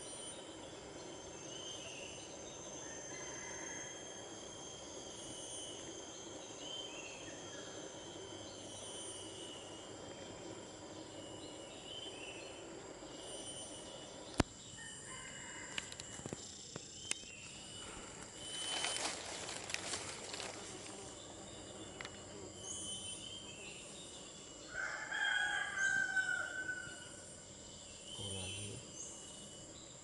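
Steady high-pitched insect drone with a second, lower steady insect tone, and a rooster crowing once about 25 seconds in. A sharp click near the middle, and a short patch of crackling noise a few seconds after it.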